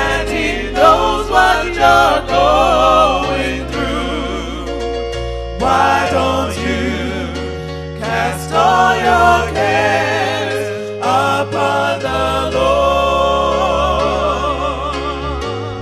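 Gospel song: a singer holds long, wavering notes with heavy vibrato over slow, sustained low chords.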